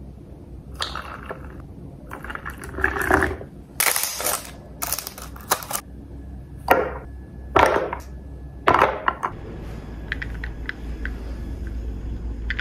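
Kitchen handling sounds of a drink being made in a ceramic mug: a series of short pours, scoops and clatters, each under a second long, through the first nine seconds or so. After that comes quieter steady room sound with a few faint ticks.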